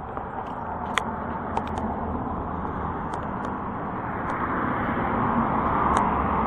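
Road traffic noise that grows steadily louder, as a vehicle draws near, with a few light clicks on top.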